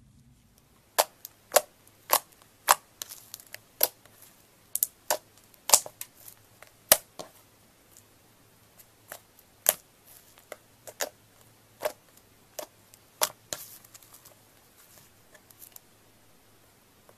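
Slime squeezed and folded by hand, giving a string of sharp pops and clicks from trapped air, about one or two a second. The clicks start about a second in and thin to faint crackling near the end.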